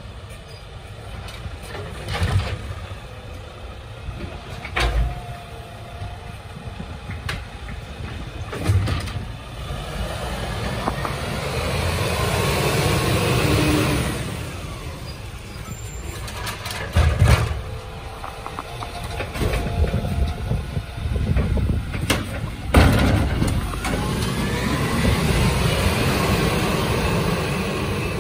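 Volvo side-loader garbage truck's diesel engine running while its automated arm grabs a wheelie bin, lifts and tips it into the hopper, with several loud clunks of the bin and arm. The engine revs up to drive the hydraulics in the middle, and the truck pulls away near the end with the engine rising in pitch.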